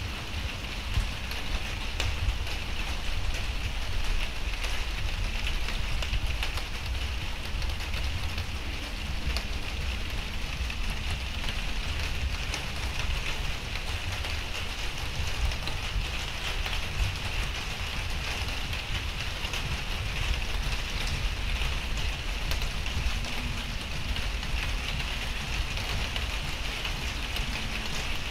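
Steady rain falling, a continuous hiss with single drop hits standing out now and then. A steady low rumble sits underneath.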